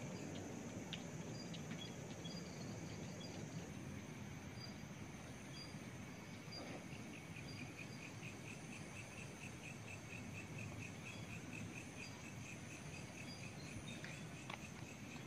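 Crickets chirping faintly at night over a low hiss. A rhythmic pulsed chirp stands out through the middle.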